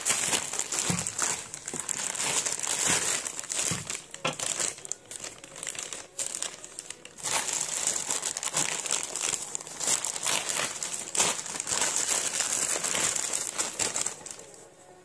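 Thin white plastic packaging bag being crumpled and pulled open by hand: dense, irregular crinkling. There is a short lull about halfway through, and it dies away near the end.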